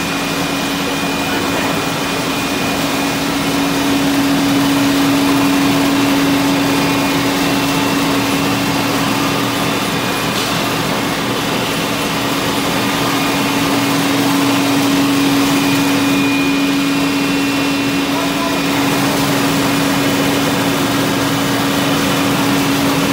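Small maize flour milling line running: electric motors, roller mill and a centrifugal blower making a loud, steady machine drone with one constant hum.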